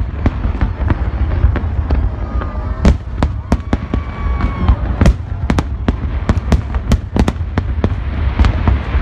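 Aerial fireworks display: shells bursting in a rapid, irregular string of sharp bangs, several a second, over a continuous low rumble.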